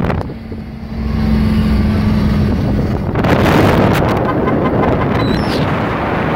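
Wind buffeting the microphone on a dune buggy driving over sand. For the first few seconds the wind drops away and the vehicle's steady engine hum comes through, then the wind noise returns about three seconds in.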